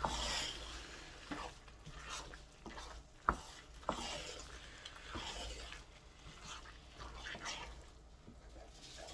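A turning stick stirring and turning jollof rice in a pot: a run of soft scraping strokes, with a sharp knock against the pot a little after three seconds and another about half a second later.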